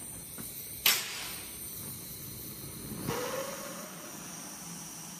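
A handheld gas torch runs with a steady hiss, its flame burning a wooden hammer handle. There is a single sharp pop about a second in, and the flame noise swells again near three seconds with a brief rising whistle.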